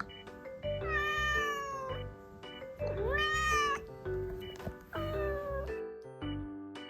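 Domestic cat meowing three times, each meow about a second long, over background music with a steady beat.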